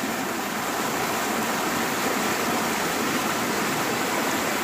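A swollen monsoon stream in flood, its water rushing and churning white over a drop in a steady, unbroken roar of water.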